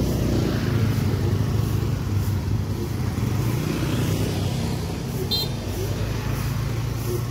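Motorcycle and scooter engines running as the bikes ride past over the level crossing, a steady low engine hum. A brief high chirp sounds about five seconds in.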